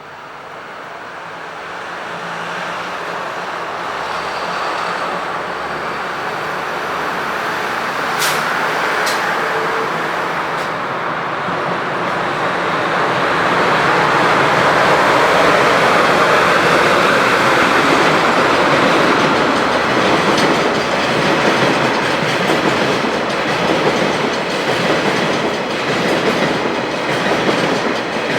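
Freight train hauled by a JR Freight EH500 electric locomotive approaching and running past, growing steadily louder over the first half and staying loud. In the second half the wheels click rhythmically over rail joints.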